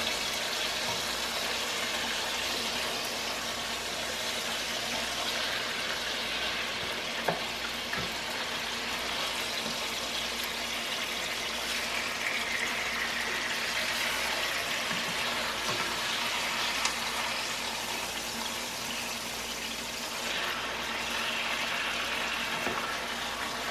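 Boneless chicken thighs frying in hot oil in a nonstick pan, a steady sizzle, with one light knock about seven seconds in.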